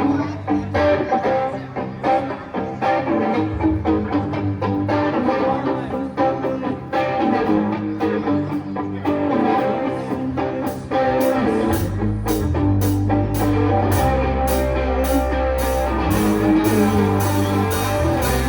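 Shoegaze/alternative rock song opening on guitar, with a heavy low end and a steady beat coming in about twelve seconds in.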